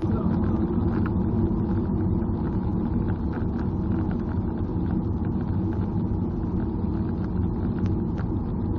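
Road and engine noise heard inside a moving car's cabin: a steady low rumble of tyres on the seal, with faint scattered ticks.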